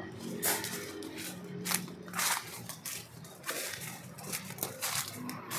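Footsteps crunching and rustling through dry leaf litter and undergrowth, with irregular crackles of leaves and twigs.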